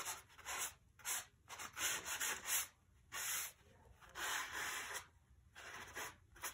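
Folded paper towel rubbing and dabbing across wet paint on rough Arches 140 lb watercolour paper, in a series of short, irregular scratchy strokes, a few of them longer, as it blots and lifts paint to texture the foreground.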